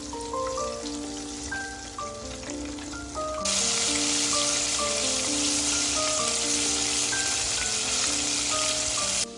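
Floured chicken pieces deep-frying in hot oil in a pot: a fainter sizzle at first, then a loud, steady sizzle from about three and a half seconds in that cuts off sharply just before the end.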